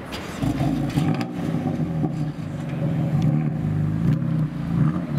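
BMW 3 Series saloon's engine idling with a steady low exhaust note.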